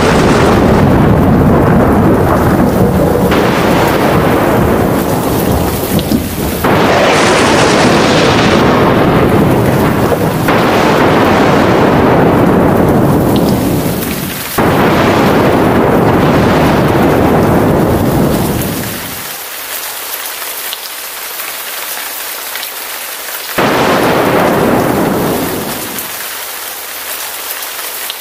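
Heavy rain with thunder: loud rolls of thunder follow one after another, each starting sharply and rumbling away. Two short lulls, about two-thirds through and near the end, leave only the hiss of the rain.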